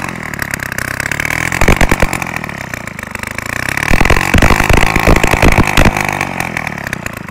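Sachs 50/3 C 47 cc two-stroke moped engine running and being revved up and down a few times, with louder surges about two seconds in and again around four to six seconds in. The owner says the engine is not running well.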